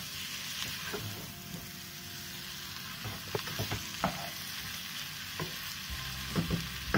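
Marinated chicken pieces sizzling as they fry in a non-stick pot with no water added yet, stirred with a wooden spatula. Scrapes and light knocks of the spatula against the pan come in the second half, the loudest knock at the very end.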